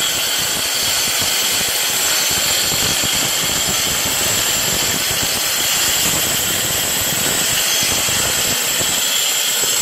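DSHitech R7 Edge floor grinder running steadily, its motor giving a loud, steady high whine over the grinding noise as the disc takes epoxy coating off the concrete floor edge.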